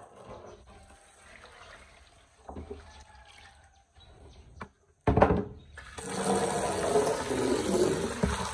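Water suddenly starts pouring and splashing about five seconds in, then runs loud and steady, after a quieter stretch with a few small knocks.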